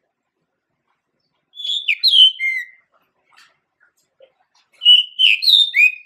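Male pied bushchat singing two short, quick phrases of whistled notes that slide up and down, the second phrase about three seconds after the first.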